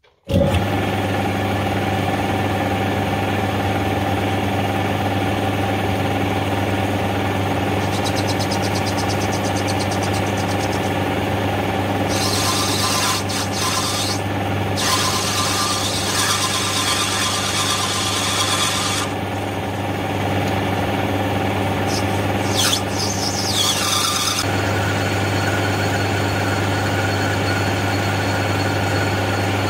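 A metal lathe starts up and runs with a steady hum while a turning tool cuts a brass round bar down to 6 mm. The cutting adds a high hissing, loudest in two spells, one over several seconds about midway and a shorter one a little after.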